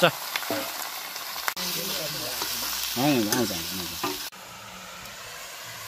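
Chunks of goat meat sizzling in hot oil in a black iron kadhai, stirred and turned with a steel ladle, with a knock of the ladle against the pan at the start.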